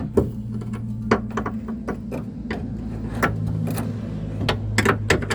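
A string of irregular sharp metal clinks and knocks: a car's caster (radius) rod and its hardware being handled and fitted back into the front suspension.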